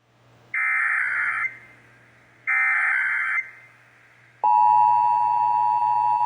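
Emergency Alert System test broadcast. Two bursts of the SAME digital header play first, each a harsh, screechy data buzz under a second long. About four and a half seconds in, the EAS two-tone attention signal (853 and 960 Hz together) starts and holds steady.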